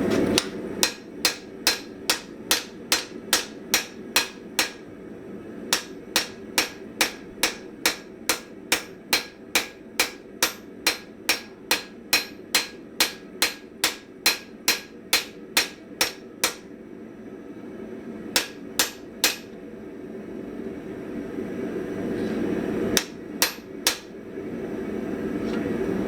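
Hammer blows on hot spring steel over an anvil, forging a chamfer into the edge of an anvil-shears blade: a steady run of about two sharp strikes a second, broken by a few short pauses.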